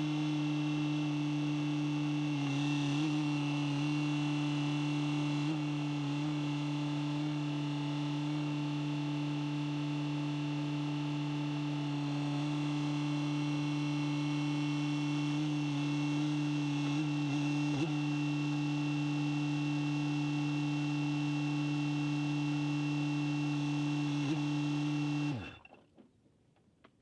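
Takeuchi TB180FR mini excavator's diesel engine running steadily. Near the end it is shut off, its pitch dropping quickly as it winds down.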